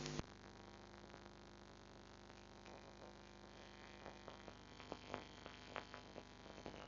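Near silence: a faint steady electrical hum, with a few faint ticks about five seconds in.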